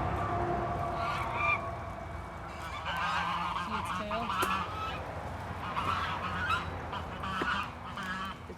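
Geese honking repeatedly, a string of short calls about a second apart.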